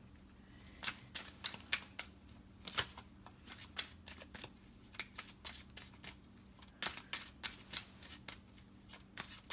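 A deck of tarot cards being shuffled and handled by hand: a run of quick, papery card snaps and flicks, several a second, coming in uneven clusters with short pauses between.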